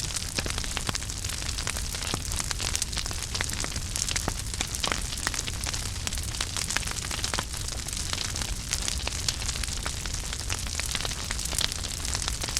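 Wood fire burning in a fireplace: steady crackling with many small irregular pops and snaps over a soft hiss and low rumble of the flames.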